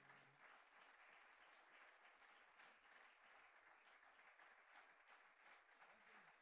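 Very faint audience applause: an even spread of many small claps.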